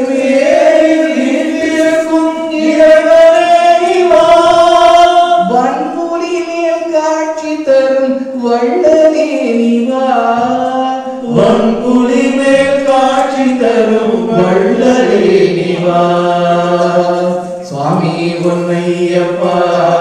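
Several voices singing a Tamil devotional bhajan to Lord Ayyappa in long, held sung phrases.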